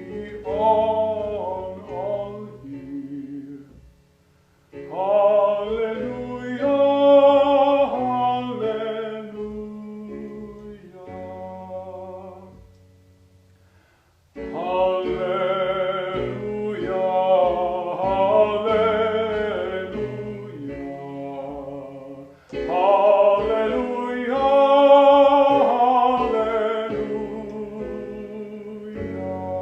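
A sacred song sung with a wavering vibrato over instrumental accompaniment, in long phrases broken by short pauses about 4 and 14 seconds in.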